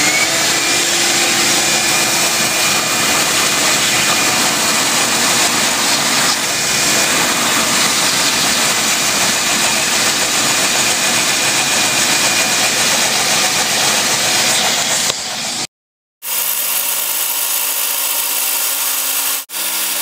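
A Kenmore (Frigidaire-built) front-load washer drains during its final spin: a loud, steady rush of water gushing through the drain pump and hose. After a brief break near the end, a steadier hum of the machine spinning.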